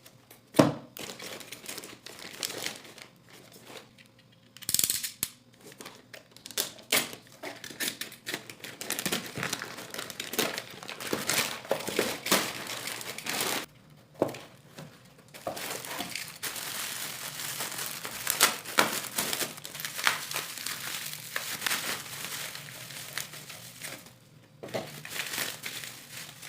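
Packaging being handled and opened by hand: irregular crinkling and rustling with sharp crackles, broken by short pauses.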